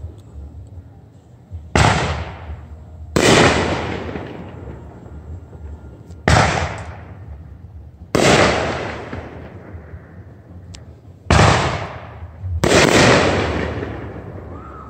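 Fireworks going off: six loud bangs in three pairs a few seconds apart, each dying away slowly in a long echo.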